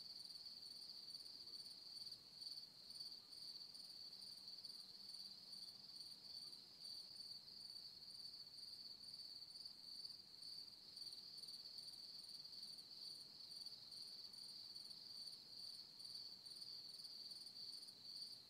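Insects chirping: a faint, steady high-pitched trill that pulses quickly and evenly throughout.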